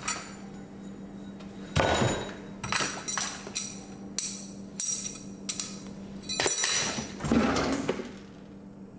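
Keys jingling in a drawer lock and the drawer rattling as it is worked: a run of sharp metallic jangles, about a dozen over several seconds, before the drawer comes open near the end.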